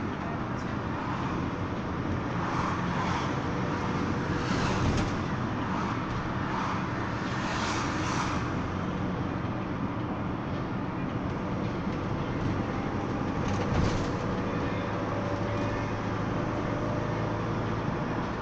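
Cabin noise inside a Mercedes-Benz Sprinter minibus on the move: steady engine hum and road noise, with a few brief louder rushes.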